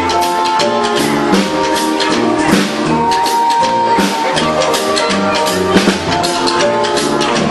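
Instrumental backing music with a steady drum beat under held melody notes.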